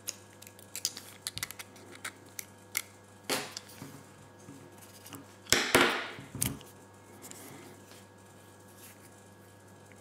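Small metal clicks and scrapes as a small screwdriver works a thin flat washer off the central shaft inside a Campagnolo QS shifter. About five and a half seconds in comes a louder scrape lasting about a second.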